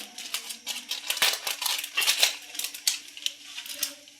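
Black peppercorns and cloves being put on a flat griddle (tawa) and rattling on it: irregular sharp clicks and crackles, a few each second, over a faint steady hum.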